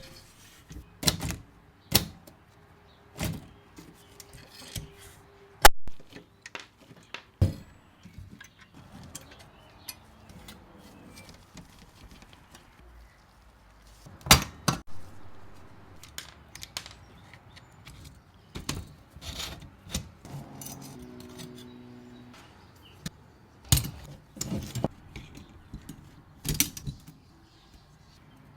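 Scattered metallic clicks and knocks of hands and tools working on a 1939 Royal Arrow portable typewriter. The strokes come at irregular intervals, a few of them sharp and loud, not the steady patter of typing.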